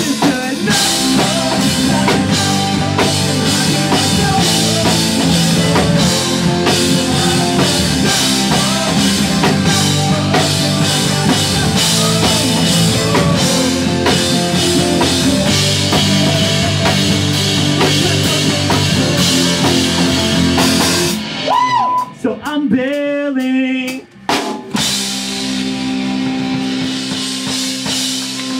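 Pop-punk band playing live: drums, electric guitar and bass in a loud full-band section. About three-quarters of the way through the band drops out for a moment, leaving a wavering, sliding tone, before a held chord rings on.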